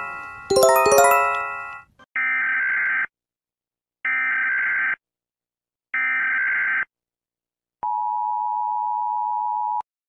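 A Japanese alert chime, a phrase of several ringing synthesized notes sounded twice and dying away. Then the US Emergency Alert System: three short screeching SAME header data bursts about two seconds apart, and about a second later the steady two-tone attention signal, cut off after about two seconds.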